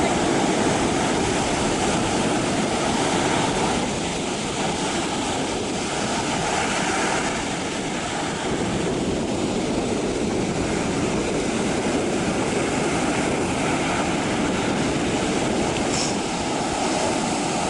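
Sea surf breaking on a beach: a steady, even rush of wave noise with no clear individual strokes.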